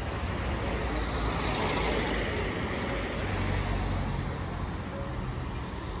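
Road traffic: a steady low rumble of vehicles, with one louder pass swelling and fading over the first few seconds.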